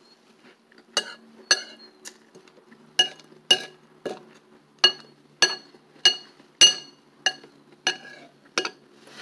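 Metal spoon scooping in a white ceramic bowl, clinking against it about a dozen times, roughly twice a second, each clink sharp with a short ring.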